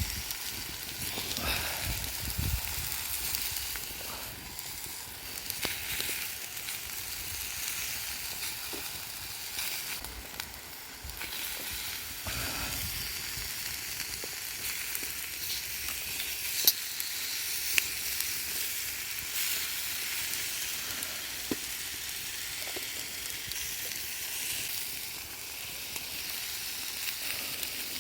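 Steady sizzling hiss from cooking over a wood campfire, with a few sharp pops in the second half.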